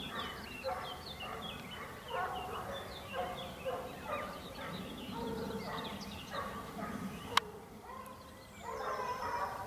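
A busy, continuous run of short repeated animal calls, one after another every fraction of a second, broken by a single sharp click a little after seven seconds in.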